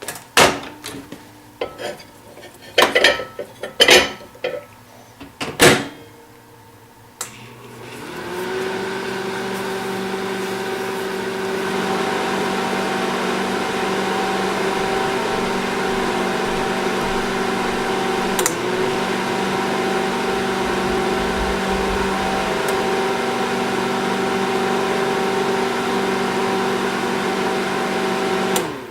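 A few sharp clicks and knocks, then a microwave oven running its cooking cycle: a steady hum that starts about eight seconds in, holds for about twenty seconds and cuts off just before the end.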